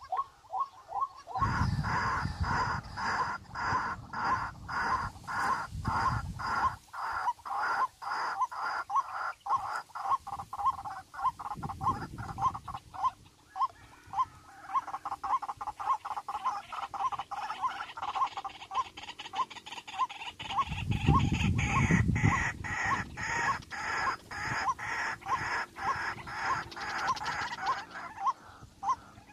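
A bird calling a long, steady series of short repeated notes, about two to three a second. Two stretches of low rushing noise come through, one from about two to seven seconds in and another from about twenty-one to twenty-four seconds in.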